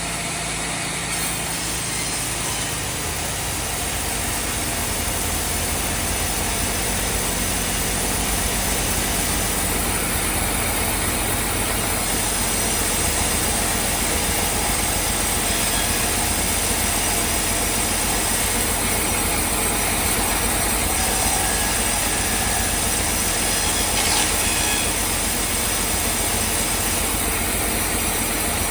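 Heavy sawmill machinery running steadily: a continuous mechanical din over a low, pulsing engine-like rumble.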